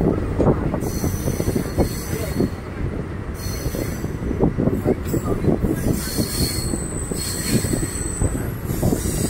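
Indian Railways passenger train running, heard from a coach doorway: a steady rumble and clatter of wheels on the rails, with high-pitched wheel squeal coming and going several times as the train rounds a curve.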